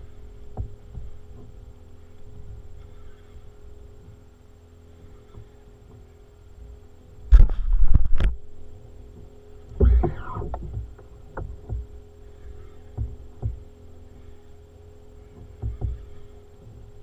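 Knocks and rubbing against the mounted action camera, loudest in a cluster about seven seconds in and again around ten seconds, over a steady hum, with a few faint knocks in between.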